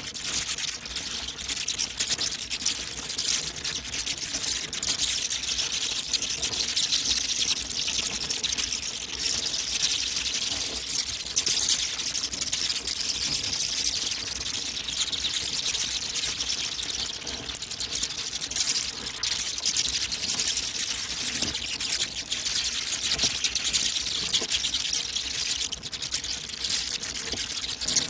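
Many bats squeaking and chattering together: a dense stream of rapid, high-pitched chirps and clicks that never lets up.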